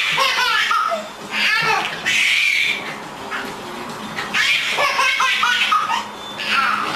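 Baby laughing hard in repeated bursts of squealing giggles and belly laughs, with a lull of a second or so midway.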